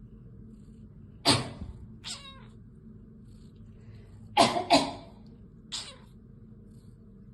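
A person's fake cough, then a domestic cat's short meow; a little later two quick fake coughs in a row, again followed by a short meow from the cat.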